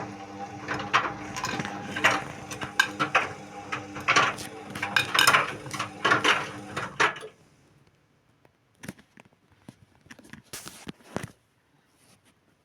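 Indesit WIU81 washing machine on a wash cycle: the drum motor hums steadily with a rapid clatter of clicks and knocks as the drum turns. About seven seconds in the drum stops, leaving a few scattered clicks.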